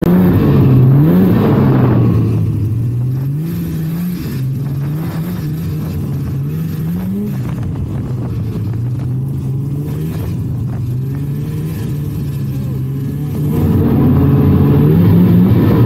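A 1999 Polaris trail snowmobile's two-stroke engine running under way, its revs rising and falling again and again. It is louder for the first couple of seconds, eases off, then picks up again near the end.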